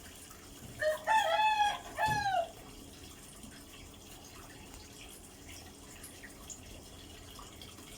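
A rooster crowing once, about a second in: a short note, a long held note, then a final note falling in pitch, about two seconds in all.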